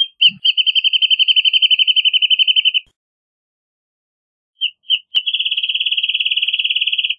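Wrentit song: a fast, even trill of sharp high notes lasting about two and a half seconds, then after a pause two single notes lead into a second, slightly faster trill.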